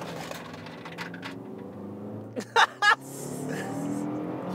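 A Toyota RAV4's 2.5 L 2AR-FE four-cylinder engine at full-throttle acceleration, heard from inside the cabin, rising in pitch as it revs. It drops once about two and a half seconds in as the four-speed automatic shifts up, then climbs again. Two short vocal sounds from the driver come just after the shift and are the loudest sounds.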